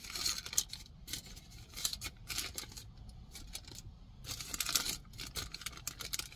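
Paper sandwich wrapper crinkling and rustling as it is peeled open by hand, in several short bursts, the loudest about four and a half seconds in.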